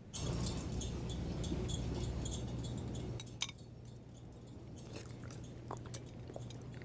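A steady hiss for about three seconds, then scattered light clinks and taps of dishes and utensils with chewing, as a meal is eaten.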